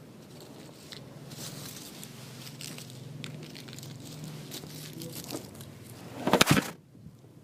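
Foil wrapper of a chocolate surprise egg crinkling and crackling as it is handled, over a low steady hum. About six seconds in comes a short, loud thump.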